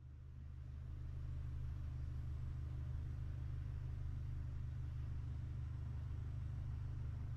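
Steady low rumble of a car engine running, fading in over the first second or so and then holding even.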